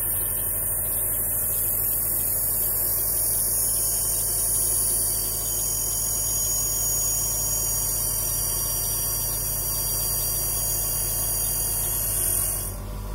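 An 8-inch bench grinder running, its motor humming steadily while a metal piece is worked against the spinning non-woven polishing mop, with a steady high hiss that cuts off just before the end.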